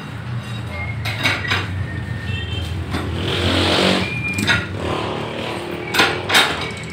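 Steel reinforcing rod being bent by hand on a bench-mounted pin jig with a steel pipe lever: sharp metal clinks and knocks with brief ringing, a scraping rush midway, and two loud clanks near the end, over a steady low hum.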